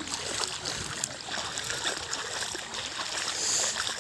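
Shallow floodwater on a path trickling and splashing, with many small splashes close by. A brief high hiss comes near the end.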